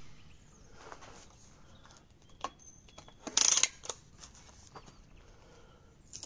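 Diana 48 side-lever spring air rifle being cocked: a few metallic clicks, then one loud rasping stroke of the side lever about three and a half seconds in. Near the end come small clinking rattles of pellets in a metal tin as one is picked out.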